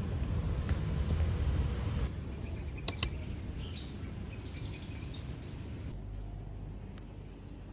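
Steady low background rumble with a sharp, high double chirp about three seconds in, followed by fainter scattered chirps.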